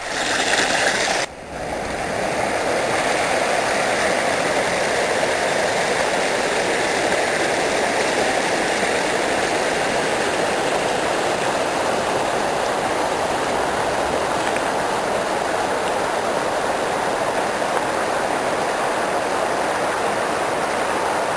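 River water rushing over rocks and rapids, a steady, even rush of water. A short stretch of brighter, hissier noise cuts off sharply about a second in, before the rush settles in.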